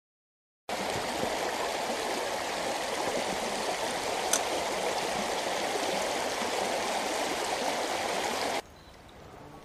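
Shallow stream running over gravel and stones, a steady babbling rush that starts abruptly about a second in. There is a single faint click midway, and near the end the flow drops suddenly to a much quieter murmur.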